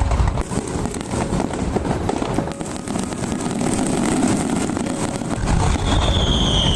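Aerial fireworks finale: a dense run of shells bursting, with rapid crackling and deep booms, the booms heavier about five and a half seconds in. Near the end a high whistle slowly falls in pitch.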